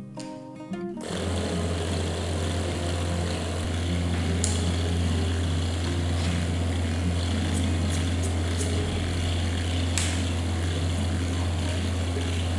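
A small electric motor-driven unit, powered by an RO purifier adapter, running with a steady low hum and hiss, with a few faint clicks. It starts about a second in, as guitar music cuts off.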